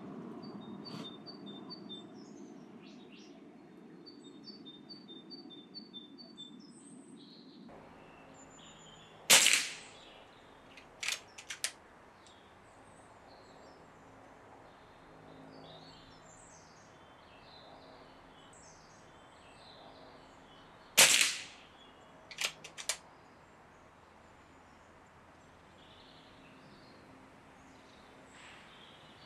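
Two shots from a Reximex Zone regulated PCP air rifle firing .177 pellets, each a single sharp crack, about twelve seconds apart. Each shot is followed a second or two later by a few quick clicks as the side lever is cycled to cock the rifle and load the next pellet.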